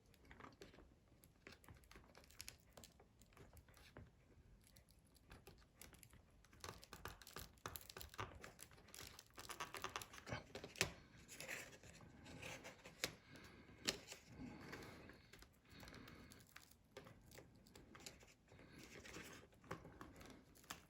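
Faint scraping, crackling and small clicks of a pry tool working an iPhone 5S battery loose from its strong adhesive, busier from about a third of the way in.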